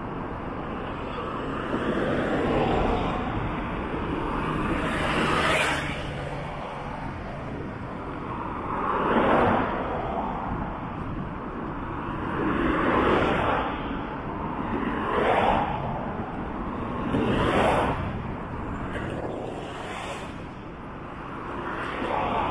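Road traffic: cars passing close by one after another, about eight pass-bys, each a rise and fall of tyre and engine noise over a steady traffic hum.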